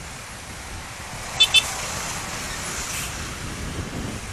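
Two short horn beeps in quick succession about a second and a half in, over steady road traffic noise.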